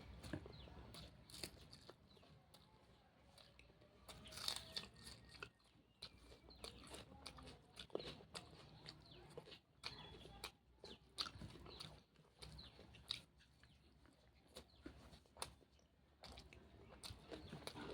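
A person chewing and eating jackfruit curry close to the microphone. It is faint, with irregular wet mouth clicks, smacks and small crunches scattered throughout and a few louder ones.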